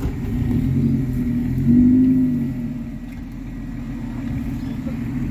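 Off-road 4WD engine running under load on a muddy track, revving up briefly about two seconds in, then dropping back to a lower, steadier note.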